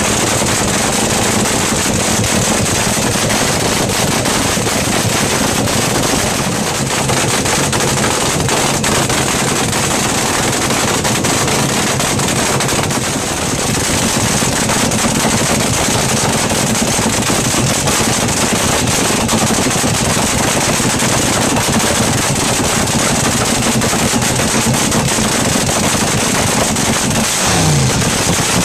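Supercharged nitromethane-burning V8 of a front-engine dragster running through open individual exhaust pipes at idle, a loud, rapid, crackling rattle of firing pulses. Its pitch rises briefly near the end.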